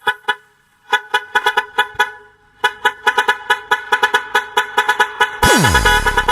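Basuri truck horn sounding a quick run of short pitched toots in a rhythmic, tune-like pattern. About five seconds in, a loud falling electronic sweep comes in as the remix beat starts.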